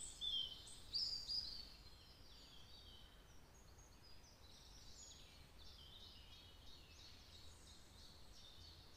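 Songbirds singing in woodland: short chirping and warbling phrases, clearest in the first second and a half, then fainter song carrying on.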